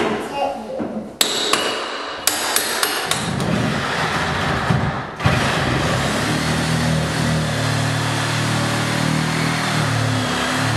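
Hammer blows on a wall being demolished: a quick run of about eight sharp strikes in the first few seconds. From about five seconds in there is a steady, continuous noise with a low hum.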